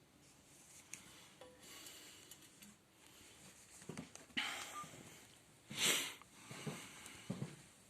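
A person sniffing and breathing close to the microphone, two short hissing breaths, the louder about six seconds in, with a few faint knocks from handling.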